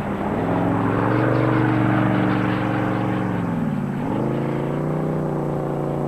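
Drag boat engine running at moderate revs, its pitch dipping and climbing back twice, most deeply about four seconds in, as the throttle is eased and opened again.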